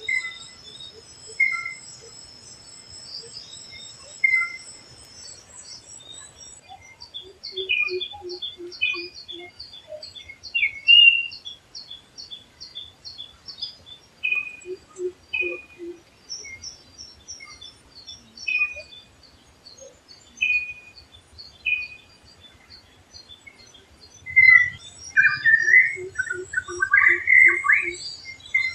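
Several wild forest birds calling and singing: thin high whistles and quick runs of chirps. A run of low, evenly spaced hoots comes three times, and a louder, wavering phrase sounds near the end.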